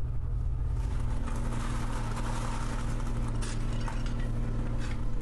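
Brooms and a shovel scraping over a paved yard, sweeping up broken glass and debris with a few light clinks, over a steady low hum.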